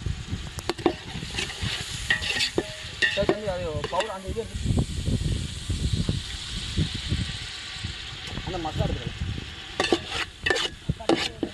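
A steel slotted spoon stirs and scrapes wet mutton pieces in an aluminium pot, with sharp clinks against the metal. Around the middle, thin gravy is poured into the pot with a steady hiss.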